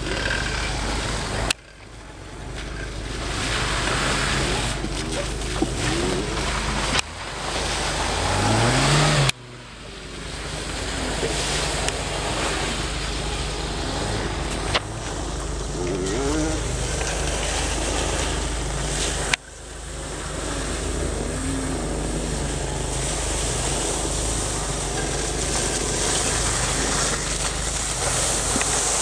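Jeep Wrangler engine revving up and down as it drives through mud, the pitch climbing sharply in one rev near the middle, with tyre and mud noise over it. The sound is broken by a few abrupt cuts.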